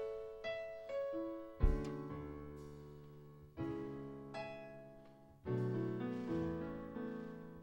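Piano playing slow chords, each struck about every two seconds and left to ring out and fade.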